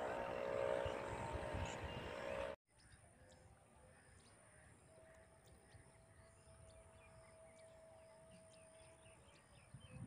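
A steady hum with a rushing noise cuts off abruptly about two and a half seconds in. What follows is quiet field ambience: small birds chirping in short repeated notes over a faint steady high whine.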